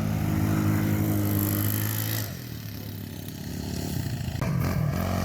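An engine running at a steady pitch, easing off after about two seconds. Near the end, after a sudden change, an engine's pitch wavers up and down as it is revved.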